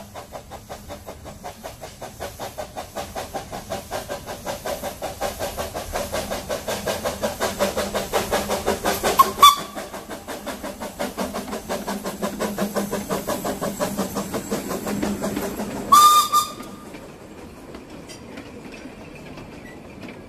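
Small narrow-gauge steam locomotive, the 1917 Kerr Stuart Stanhope, working past with a steady chuff of about four exhaust beats a second that grows louder as it approaches. Its whistle sounds two short blasts, one near the middle and one about three-quarters in, after which the chuffing stops.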